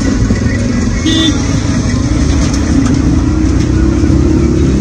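A motor vehicle's engine running close by, a low rumble with a steady hum that rises a little and then settles.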